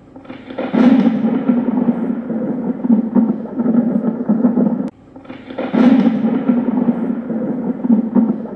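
Title-sequence sound effect: a loud crack followed by a long rumble like thunder. It breaks off just before five seconds in and starts again with a second crack and rumble.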